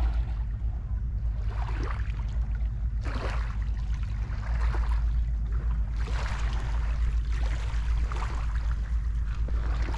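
Small waves lapping and washing over a pebble shoreline, with a swash swelling and fading every second or two over a steady low rumble.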